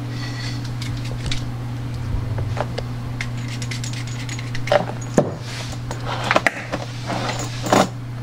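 Handling noise as camera gear is packed into an aluminium equipment case: scattered clicks and knocks, most of them in the second half, over a steady low hum.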